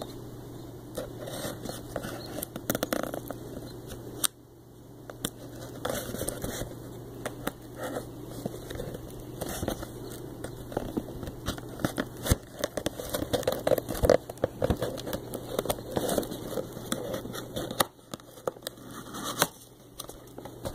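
Cardboard shipping box being handled and torn open: irregular crackling, tearing and scraping of cardboard with many sharp clicks, easing off briefly twice. A faint steady hum runs underneath.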